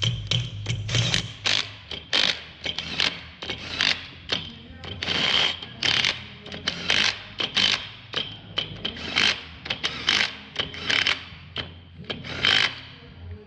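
Repeated sharp metal knocks and clicks from hand tools working on a combine head's sickle bar while its sickle sections are replaced, coming irregularly about one or two a second over a steady low hum.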